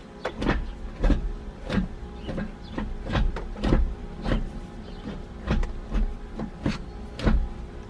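Manual gear shifter of a Nissan 350Z being worked through the gears with a newly fitted shift knob, giving an uneven run of clunks and clicks about two a second over a faint steady hum.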